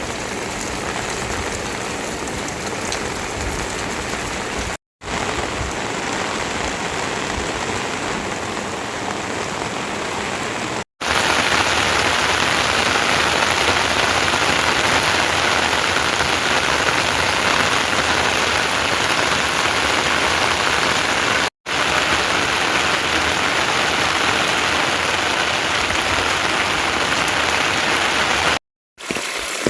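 Steady rain falling and pattering on a surface, as an even hiss broken by a few brief silent cuts. It is louder in a stretch through the middle.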